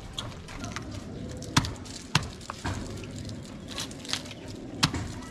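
Knife working on fresh fish on a wooden chopping block: soft scraping and cutting, with a few sharp knocks of the blade striking the block.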